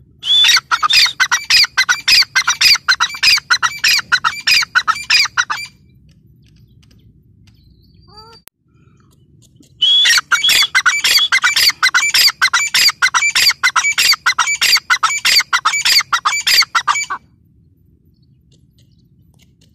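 Grey francolin calling: two long bouts of short notes in quick succession, the first about five seconds long and the second, starting about ten seconds in, about seven seconds long, with a pause between.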